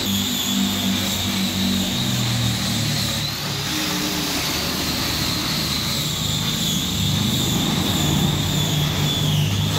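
Steady running noise of a workshop machine, with a constant high whine over a low hum.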